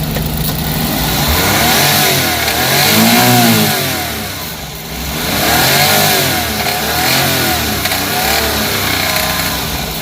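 Suzuki DA64's three-cylinder K6A engine revved from idle and let fall back several times, rising and falling in pitch. It is noisy, a knocking engine that the mechanic puts down to worn main and connecting-rod bearings needing a general overhaul.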